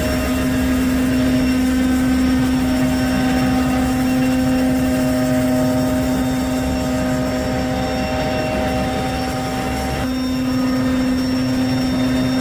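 Street sweeper running steadily, its engine and suction fan giving a constant whine over a broad rushing noise and a low rumble.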